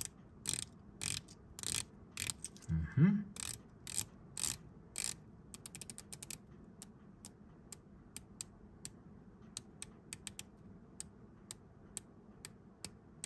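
The 120-click bezel of an Oris TT1 dive watch being turned by hand, ratcheting in single clicks. The clicks come about two a second at first, then as a quicker run of lighter clicks from about halfway. A short low sound rising in pitch comes about three seconds in.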